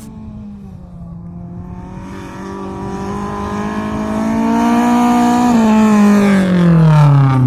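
Rally car approaching at speed, its engine note growing steadily louder. About five seconds in, the engine pitch starts to fall and keeps dropping to the end.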